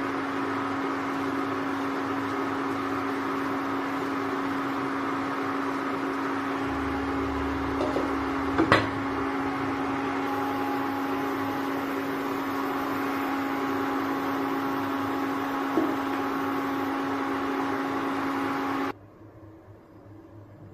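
Induction cooktop running with a steady electrical hum and cooling-fan whir, with a sharp clink about nine seconds in as a glass lid is set on the pan. The hum cuts off suddenly near the end.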